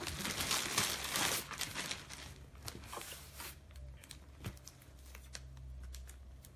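Packing material crinkling and rustling as a shipping box is unpacked, dense for the first two or three seconds, then thinning to scattered light handling clicks and a single tap.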